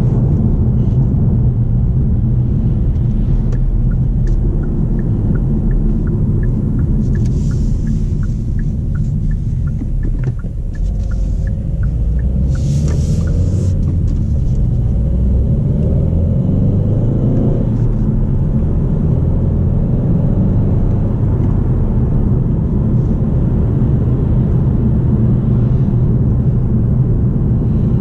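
Kia XCeed 1.6 CRDi four-cylinder turbodiesel and road noise heard from inside the cabin while driving: a steady low rumble. A light regular ticking about twice a second runs for several seconds in the first half, and the engine note rises briefly a little past the middle.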